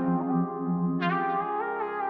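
Background music: sustained brass-like synthesizer chords, with a new chord or melody note every second or so.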